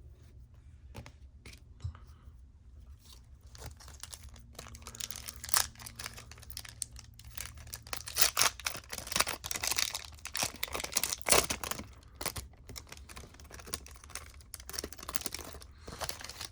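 Foil trading-card pack wrapper being torn open and crinkled, with cards rustling and clicking as they are handled; busiest partway through.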